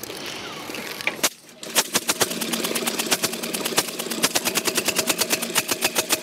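The 1901 Triumph Prototype's single-cylinder engine fires up about two seconds in. It starts as a ragged run of sharp exhaust beats, then settles into a fast, even beat as it runs.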